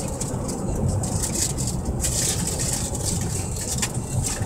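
Steady rumble of a car's engine and tyres heard from inside the cabin while driving, with a high hiss and brief scratchy noises on top.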